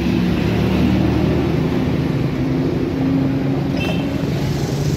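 Steady low engine drone of road traffic, with several hum tones shifting slightly in pitch as vehicles idle and move. A brief sharp click about four seconds in.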